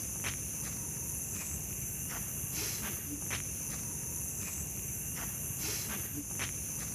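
Steady high-pitched chirring of night insects such as crickets, with a few faint short clicks or light steps every second or so.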